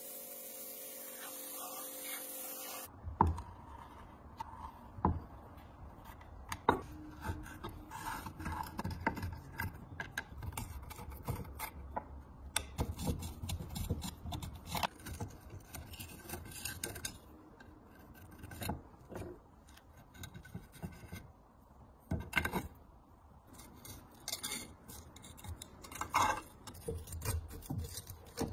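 A pressure washer jet hisses steadily on a rusty stove plate, then cuts off about three seconds in. After that comes irregular scraping, rubbing and sharp clicks and knocks of hand work on cast-iron stove parts: small nuts being worked and a knife blade scraping off crusted rust and debris.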